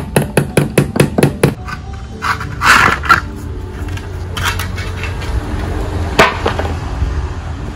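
Hammer blows on a bamboo gate frame: about eight quick, even strikes in the first second and a half. Then a scrape and two separate knocks.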